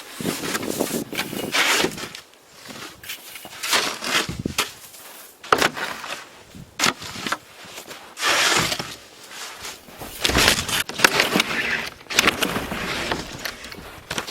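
Snow shovel scraping and crunching into deep drifted snow in irregular strokes, mixed with crunching footsteps.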